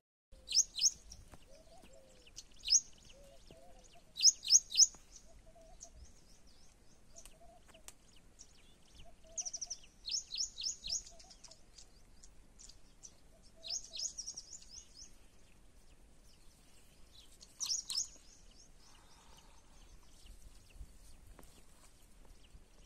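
Birds calling: quick runs of three to five sharp, high notes repeated every few seconds, with a fainter, lower short call repeating about once a second in the first half.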